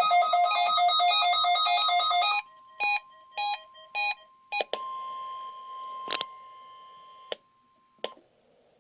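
NOAA weather radio receiver's alarm sounding a rapid warbling tone that stops about two and a half seconds in, followed by four short beeps. The steady weather alert tone then carries on faintly with a light hiss, with a sharp click about six seconds in and a smaller one near the end.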